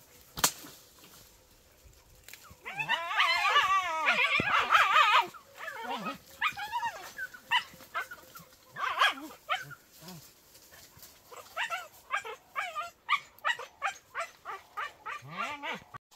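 Hunting dogs yelping and barking: a burst of several overlapping, wavering yelps from about three to five seconds in, then scattered short yips and barks. A sharp crack near the start.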